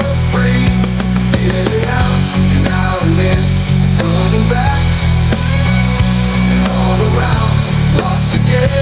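Hard rock music, instrumental: a heavy electric bass line and driving drums with electric guitar.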